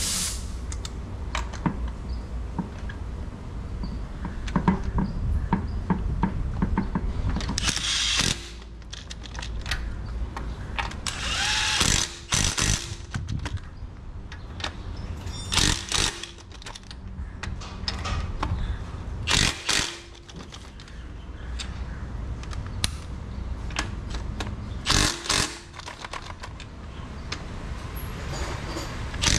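Cordless impact wrench hammering lug nuts tight on a truck wheel, in about half a dozen short bursts a few seconds apart, over a steady low hum.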